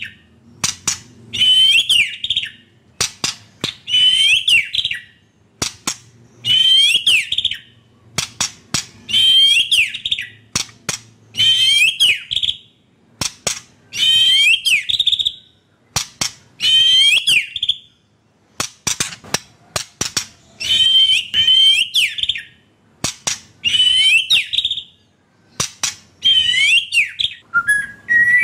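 White-rumped shama (murai batu) singing the same short phrase over and over, about once every two seconds: each phrase is a quick run of sharp clicks followed by a whistled figure, with single sharp clicks in the gaps between phrases.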